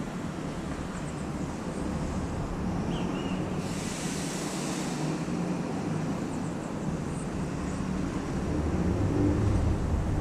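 Outdoor ambience: a steady low rumble with a few faint, short, high bird chirps. About four seconds in comes a hiss lasting about a second and a half.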